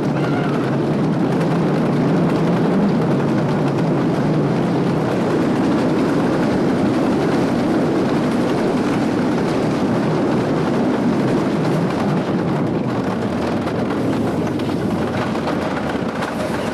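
Wooden roller coaster train running at speed along its wooden track, heard from a rider's seat as a loud, steady clattering rush. It eases a little near the end as the train rolls into the station.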